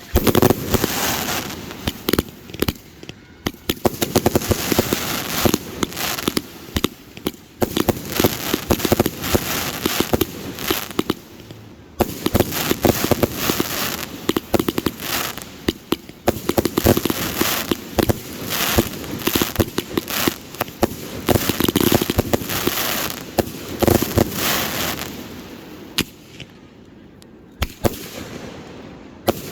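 Fireworks display going off: a dense, rapid run of bangs and crackling, thinning to scattered pops in the last few seconds.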